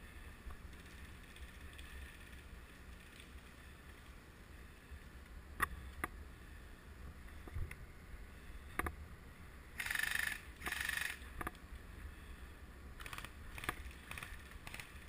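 Low outdoor background with scattered sharp clicks and two short bursts of rustling about ten seconds in.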